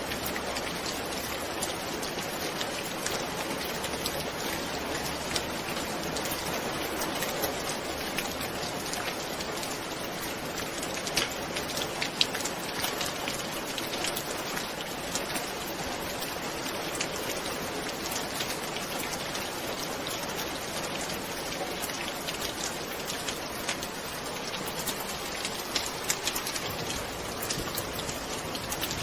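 Steady rain falling, with many close individual raindrop hits over a constant hiss; a few drops land louder about twelve seconds in and again near the end.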